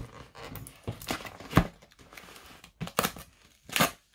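Hands handling a cardboard mailer box: rustling and scraping of the cardboard, broken by a few sharp knocks and clicks, the loudest about one and a half seconds in.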